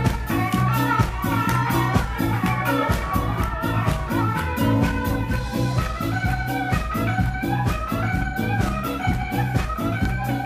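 Ska band playing live: drums keeping a steady quick beat under bass notes, keyboard and melody lines.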